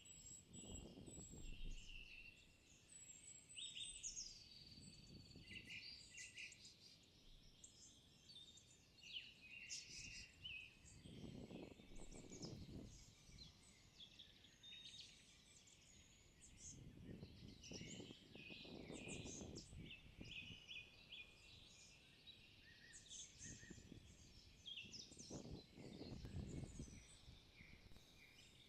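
Several songbirds singing at once in woodland, a dense mix of short whistled and trilled phrases, faint throughout. Five low rumbles, each lasting a second or two, rise and fall beneath the birdsong.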